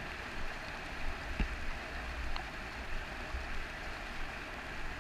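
Steady water noise at the surface where a person is standing in the water, with a deep rumble and two faint clicks about a second apart.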